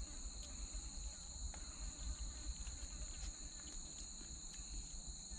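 Insect chorus in the rainforest: a steady, high-pitched buzz at two pitches that never lets up, with a few faint ticks over it.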